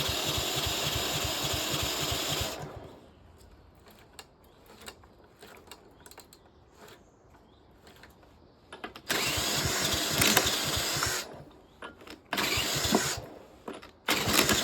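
Power drill spinning a push lawnmower's engine over by its crankshaft, in place of the broken recoil pull starter. It runs in bursts: one for the first couple of seconds, then a long pause, then two more about nine and twelve seconds in, and another starting near the end, with the engine turning over but not yet running on its own.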